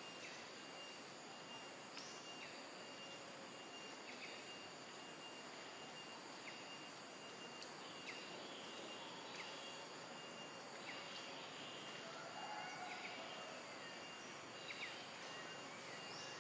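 Faint outdoor background: an even hiss with a steady high thin tone and short chirps every second or two.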